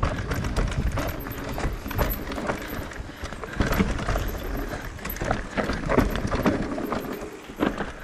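Haibike AllMtn 3.5 e-mountain bike clattering over roots and rocks on a technical trail: a dense, irregular run of knocks and rattles from tyres, suspension and drivetrain, over a rumble of rolling noise.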